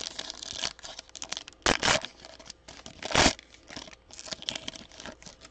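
Trading card pack wrapper being torn open and crinkled in the hands, with two louder tearing rips about two and three seconds in.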